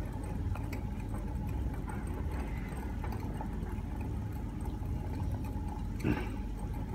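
Steady low electrical hum of two electric laboratory hot plates running, with a faint high tone over it. A brief knock about six seconds in.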